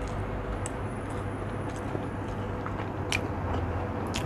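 Eating by hand: a few faint clicks and smacks as fingers gather rice and the mouth chews, over a steady background hum.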